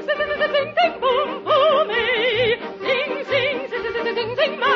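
Operatic soprano singing a quick, bright melody with a wide vibrato, over an orchestra whose bass marks a bouncy beat about twice a second. The top end is cut off, as in an old broadcast recording.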